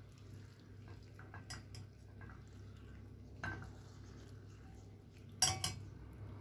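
Spatula stirring bubbling caramel in a stainless steel saucepan. Its metal handle knocks against the pan a few times, with a louder clatter about five and a half seconds in.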